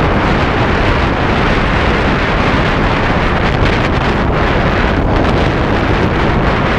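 Strong wind buffeting the microphone, a loud, steady rush that covers everything else.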